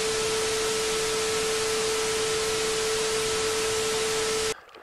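TV static sound effect: a steady hiss of white noise with a steady tone running under it, cutting off suddenly near the end.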